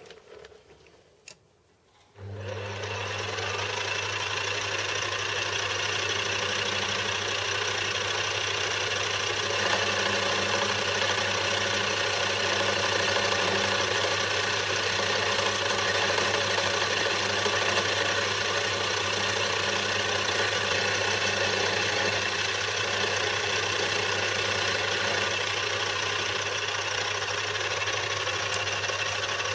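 Benchtop metal lathe starting up about two seconds in, then running steadily with a strong hum and gear noise while it turns an aluminium part. It winds down just before the end.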